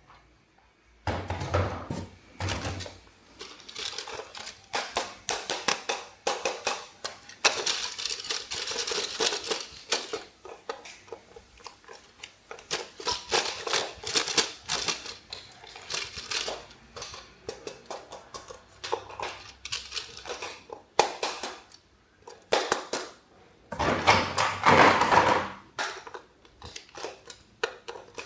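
Plastic toys and their packaging being handled: an irregular string of clicks, knocks and rustling, with a louder stretch of rustling near the end.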